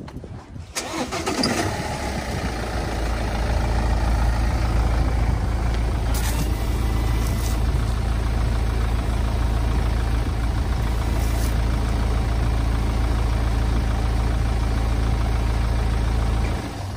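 BMW 1 Series E81 engine starting about a second in and settling into a steady idle, then switched off suddenly just before the end. A few light clicks in the middle as the windscreen washers spray and the wipers sweep.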